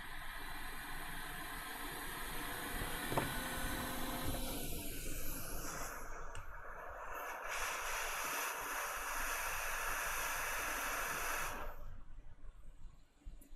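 Hot air rework station blowing a steady hiss of hot air onto a reballing stencil, melting solder paste into solder balls on a chip. The hiss cuts off suddenly near the end as the air is taken away.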